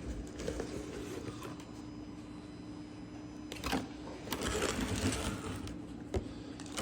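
Handling of RC car parts and packaging: a couple of sharp clicks and a louder stretch of rustling a little past the middle, over a steady low hum.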